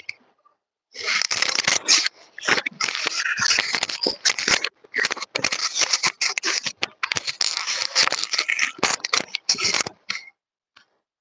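Handling noise from a clip-on lapel microphone being unclipped, turned in the fingers and clipped back on: loud scratchy rubbing and clicks straight on the mic, in bursts with short gaps, starting about a second in and stopping near the end.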